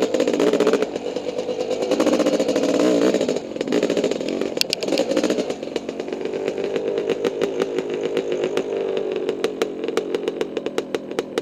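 Honda CR500 two-stroke single-cylinder dirt-bike engine running, its pitch rising and falling with the throttle in the first half, then settling into a slower, even popping idle from about halfway through.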